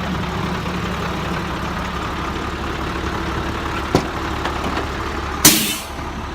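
Vehicle engine idling with a steady low hum, with a light click about four seconds in and a short, loud bang about five and a half seconds in.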